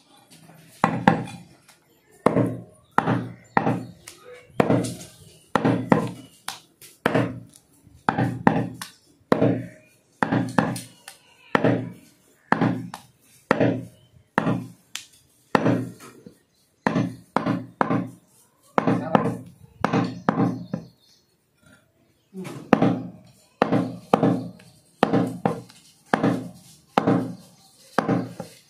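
Cleaver chopping through goat meat and bone on a chopping block: a steady run of heavy strikes, about one and a half a second and often in pairs, with a short pause about three quarters of the way through.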